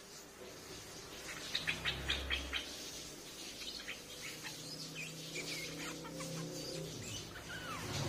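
Streak-eared bulbul calling: a quick run of about half a dozen sharp chirps about a second and a half in, then scattered chirps and short falling notes.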